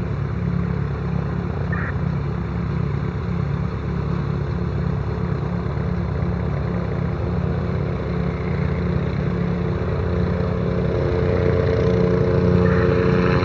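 Bell 407GX helicopter's four-blade rotor and turboshaft engine running, the rotor beating rapidly and evenly with steady engine tones over it. It grows louder over the last few seconds as the helicopter comes in to land.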